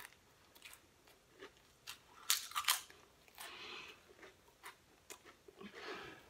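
Pringles potato crisps being crunched and chewed with a full mouth: irregular crisp crunches, loudest in a quick cluster about two and a half seconds in.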